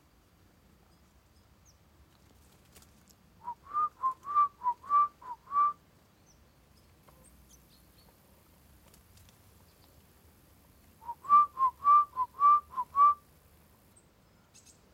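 A person whistling: a quick run of about eight short notes swinging between two pitches, given twice, several seconds apart.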